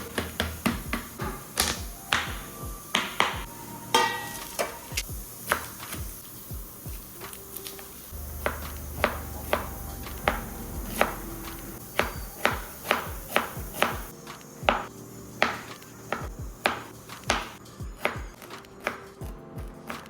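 A knife chopping vegetables on a cutting board: many quick, sharp strokes, about two or three a second, over background music.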